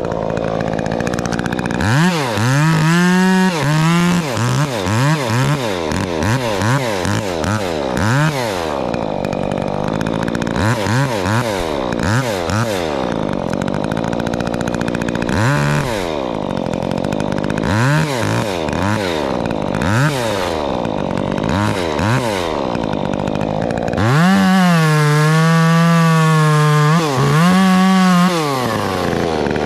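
Top-handle chainsaw revved in many short bursts that rise and fall back to idle, then held at high revs for about three seconds near the end while cutting through an ash limb, with a second short cut just after.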